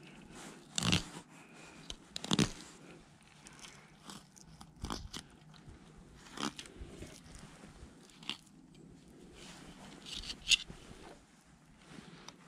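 Serrated fillet knife cutting through a crappie on a plastic cutting board: irregular crunching and scraping strokes as the blade rides along the bones.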